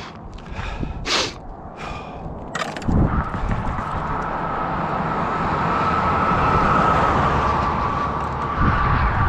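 A car passing on the road, its tyre and road noise swelling from about three seconds in and slowly fading toward the end, with a faint steady whine. A few short knocks come in the first three seconds.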